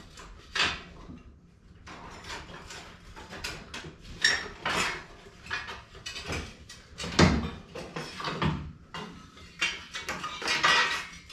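Irregular metal clanks, knocks and scrapes as the old stock exhaust muffler of a Can-Am Maverick X3 is worked loose and pulled out from under the rear bodywork, the loudest knock about seven seconds in.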